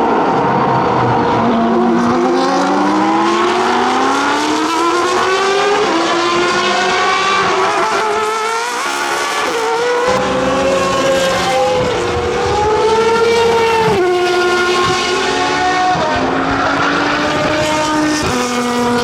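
Formula 1 car's V10 engine at racing speed, its pitch climbing through the revs and dropping sharply at each gear change several times.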